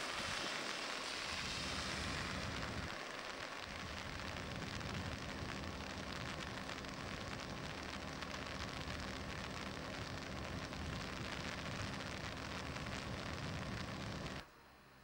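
Steady drone and hiss of machinery aboard the car ferry MF Manger, engine and ventilation noise as heard in the passenger saloon, with a faint low hum under it. It cuts off abruptly near the end.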